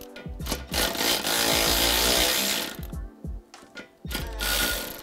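Power tool running in a burst of about two seconds, then again briefly near the end, loosening the 18 mm nut on a Dodge Challenger's upper control arm. Background music plays underneath.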